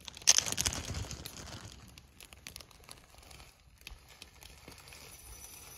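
Plastic packaging crinkling as it is handled, loudest for about a second near the start, then quieter rustling with a few light clicks.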